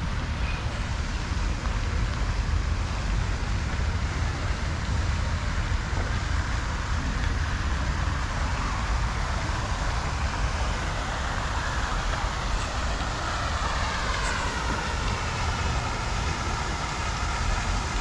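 Fountain jet falling into its pond, giving a steady rushing hiss of splashing water over a low rumble.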